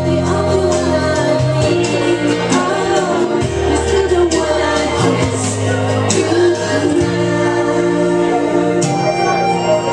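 A woman singing into a microphone over instrumental accompaniment with a sustained bass line, amplified through a PA.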